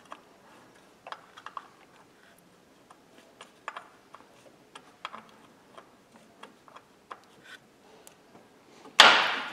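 A hand ratchet clicking in scattered single clicks as fasteners are snugged up in the engine bay. A loud clank about nine seconds in.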